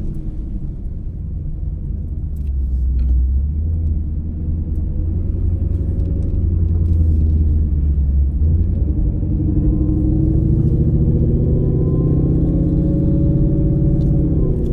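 The Whipple-supercharged Coyote V8 of a drag-racing Mustang running under load with a deep note. About two-thirds of the way in, the low end eases and the engine's pitch climbs steadily for several seconds before dropping just at the end.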